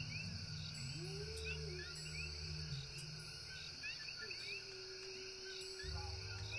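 Night chorus of frogs and insects: many short rising chirps repeating over a steady high buzz, with low drawn-out tones underneath.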